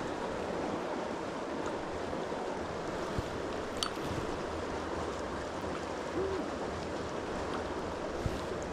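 Steady rush of a flowing trout creek.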